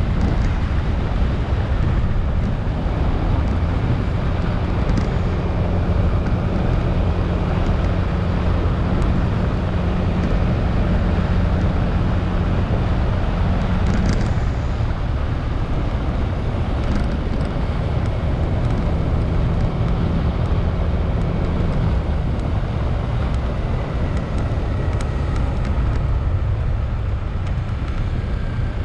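Motorcycle riding along the road: a steady engine hum under wind and road noise on the camera's microphone, with the engine note changing briefly about halfway through.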